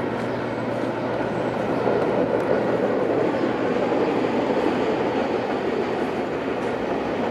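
Freight train of tank cars rolling across an overhead railway bridge: a steady rumble of wheels and cars that holds even throughout.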